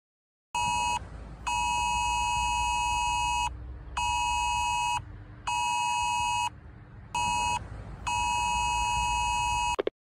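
UK national Emergency Alert warning sound: a loud, siren-like alert made of two steady tones close together near 1 kHz, sounding in on-off pulses of about one to two seconds with short gaps between them, over a low rumble.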